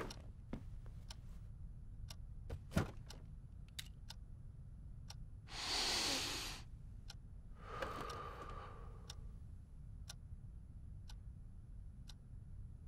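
Clock ticking about once a second in a quiet room, with a couple of sharper knocks in the first few seconds and a breathy rush of noise lasting about a second midway.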